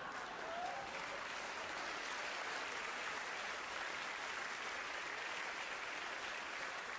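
Theatre audience applauding, a steady clapping of many hands.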